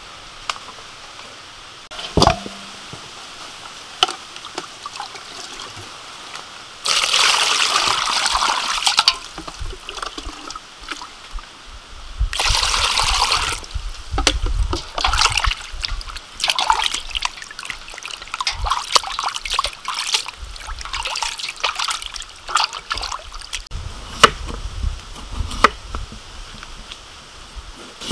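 A whole raw chicken being washed by hand in a stainless steel bowl of water. Water runs into the bowl in two spells of a couple of seconds each, then it sloshes and splashes irregularly as the bird is rubbed and turned, with a few sharp knocks.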